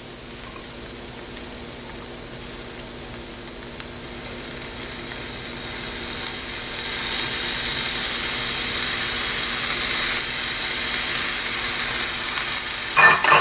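Grated cauliflower sizzling in a hot frying pan. The sizzle grows louder about six seconds in as cream goes into the pan, and a few knocks come near the end.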